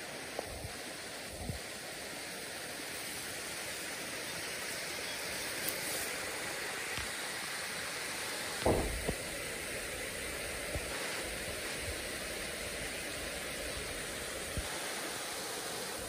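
Steady rushing of a small mountain waterfall and stream, with a brief low thump about halfway through.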